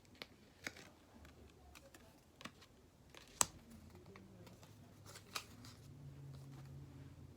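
Trading cards being handled and flipped through, giving a few light clicks and taps, the sharpest about three and a half seconds in.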